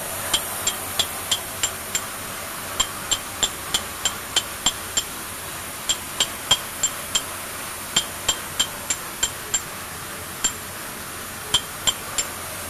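Hammer striking a steel chisel on stone. Sharp ringing metallic taps come about three a second in runs of five to eight strokes, with short pauses between runs, over a steady background hiss.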